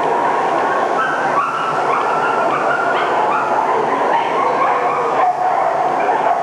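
Many dogs yipping and whining at once, short high cries overlapping one another over a constant din.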